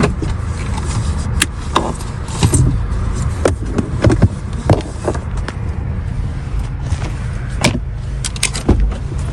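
Steady low rumble of a car idling, with about ten irregular sharp clicks and knocks as a person climbs out of the car.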